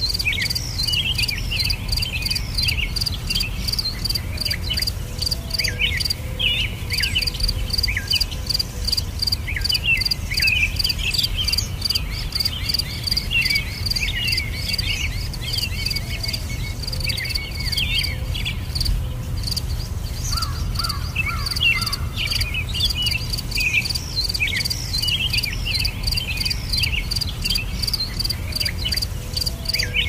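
Forest ambience: an insect chirping in a steady high pulse, about three chirps a second, with songbirds chirping and twittering over it and a steady low rumble underneath.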